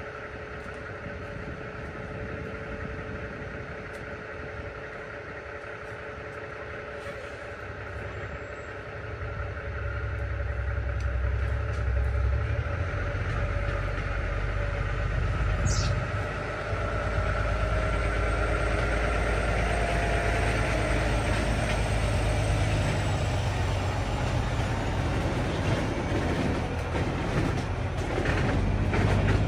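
A steady low vehicle rumble with a faint hum on top, growing louder about ten seconds in and staying loud.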